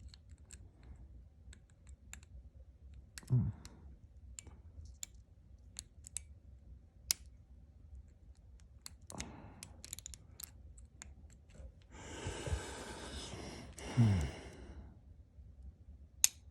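Small, irregular metallic clicks of a hook pick lifting pins inside a Master Lock 410 padlock under tension, as the picker tries to set the serrated pin. A person sighs several times, loudest about three seconds in and again near the end, with a long breath out just before the last sigh.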